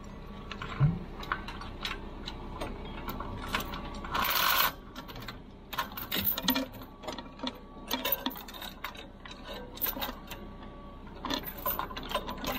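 Hand tools clicking and metal clinking against a diesel engine's parts and lifting chains as parts are unbolted, in irregular sharp ticks and knocks, with a brief hiss about four seconds in.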